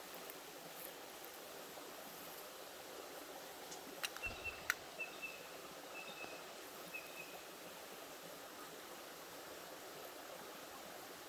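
Steady rush of flowing creek water. About four seconds in come two sharp clicks, then a short run of about five high, thin chirps over the next three seconds.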